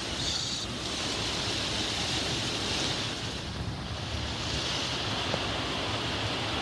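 Thunderstorm wind and heavy rain, a steady rushing hiss that eases briefly a few seconds in.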